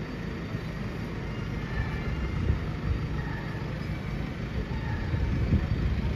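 Low, steady rumble of Mercedes-Benz E-Class limousines moving slowly past in procession: engines and tyres at a crawl.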